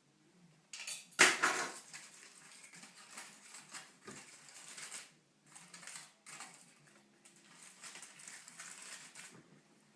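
Kitchen handling noise: a loud clank about a second in, then irregular scraping, tapping and clattering of utensils against cookware as the chicken is handled.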